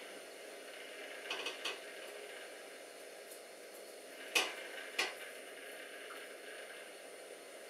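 Steady faint background hiss with a few short sharp clicks: a small cluster a little over a second in and two louder single clicks about four and a half and five seconds in.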